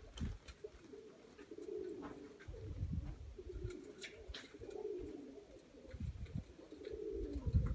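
Domestic pigeons cooing in repeated wavering phrases, with intermittent low rumbles underneath.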